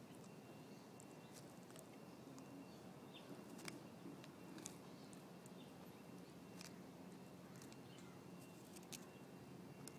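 Faint, irregular crisp clicks and crunches of a tortoise's beak biting into and chewing dried dog droppings, a handful scattered through otherwise near silence.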